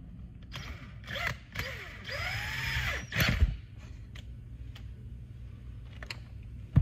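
Hand screwdriver tightening the clamp screw that holds a Stihl FC95 edger's power head on the drive shaft. A stretch of scraping and squeaking with rising and falling pitch comes about a second in and lasts a couple of seconds, and a few light clicks come near the end.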